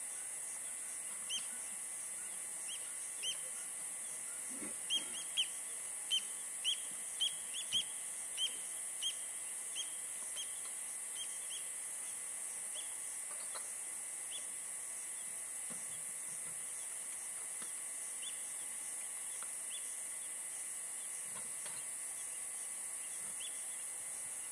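A bird calling in a run of short, sharp notes, about two a second, loudest a few seconds in and then thinning out to occasional notes, over a steady high hiss.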